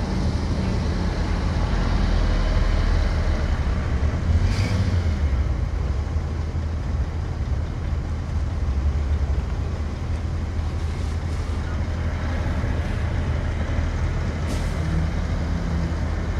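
Heavy diesel construction machinery running steadily under a low drone, with two short hisses, one about four and a half seconds in and one near the end.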